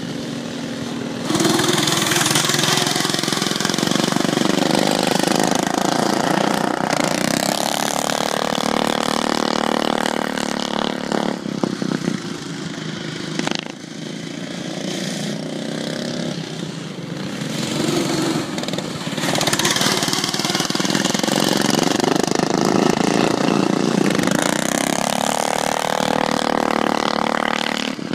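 Several stock riding lawn mowers' small engines running flat out as they race past, their pitch rising and falling as each one passes. The engines get loud suddenly about a second in, ease off around the middle, and swell again from about nineteen seconds.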